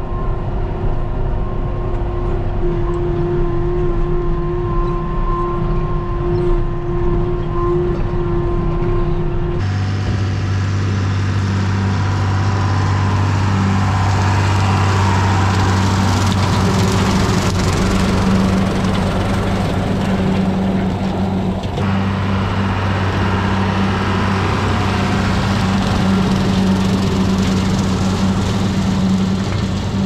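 John Deere 7510 tractor's diesel engine running steadily under load while pulling a Woods rotary mower through weeds, first heard as a drone from inside the cab. About ten seconds in the sound changes abruptly to a louder, deeper hum mixed with the mower's blades chopping weeds, heard from ground level as the tractor and mower pass.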